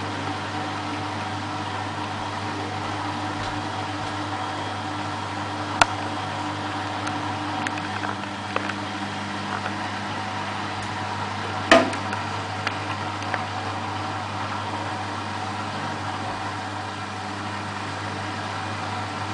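Beko WMA642 washing machine tumbling its drum slowly in the anti-tangle stage before the spin, its motor running with a steady hum. A few light clicks and one sharp knock, about twelve seconds in, come from the machine.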